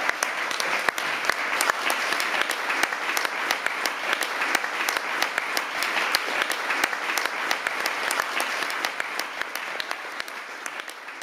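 Audience applauding, a dense run of hand claps that fades away near the end.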